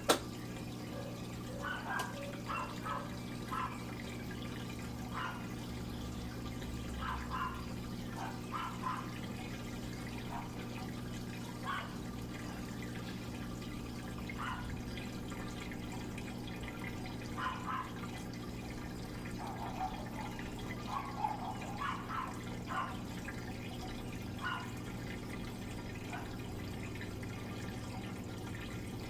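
Water dripping and trickling inside a Midea Wave-Agitator top-loading washing machine during its wash cycle: irregular drips over a steady low hum.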